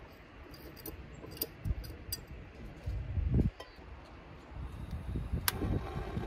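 Metal clinks and handling knocks as a screw-on backpacking stove is fitted to a gas canister and a metal pot is set on it, with a dull knock about three seconds in. A sharp click comes near the end from a lighter held at the burner.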